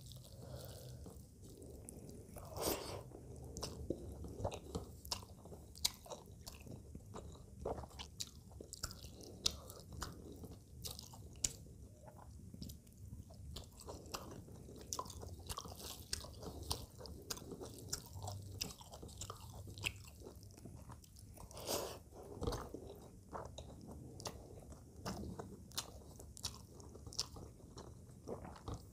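Close-miked chewing of rice and pabda fish curry, with many irregular sharp clicks and smacks.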